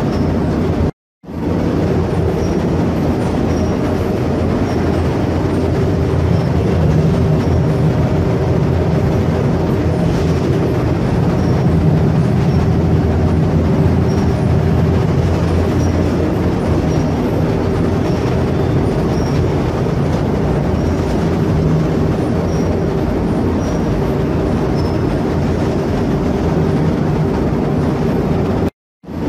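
Steady, loud mechanical rumble with a constant low hum running under it, dropping out to silence briefly about a second in and again near the end.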